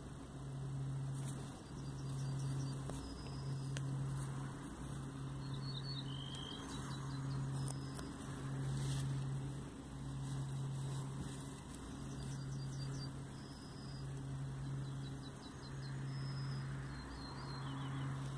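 A low hum that pulses about once a second, with faint high bird chirps now and then.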